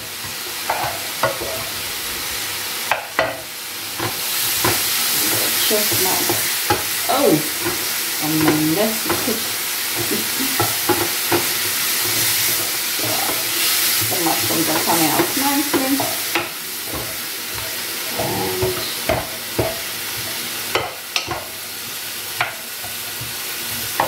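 Food sizzling in hot oil while a wooden spoon stirs, scraping and knocking against the cookware: chopped kale turned in an enamel pot, and sliced mushrooms frying in a pan. The sizzling grows louder about four seconds in.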